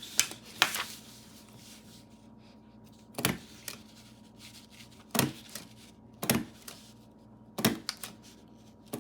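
A vintage desk stapler, an Ace Cadet, being pressed down again and again. Each stroke is a sharp snap, one every one to two seconds, with a double click in the first second. The stapler is working: it staples properly.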